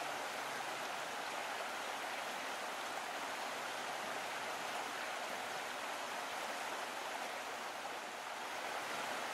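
Steady rushing of running water from a stream, even and unbroken.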